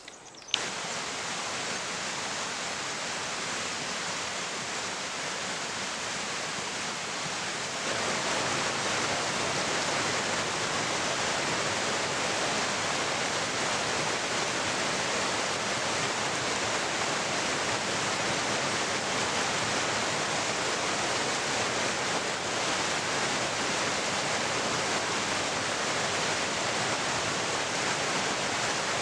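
Rushing water, a steady hiss that gets louder about eight seconds in.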